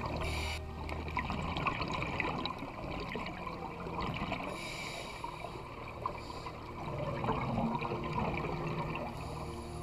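Underwater sound picked up through a GoPro's housing: scuba divers' exhaled bubbles gurgling and crackling, with a brief hiss of regulator breathing about every four to five seconds.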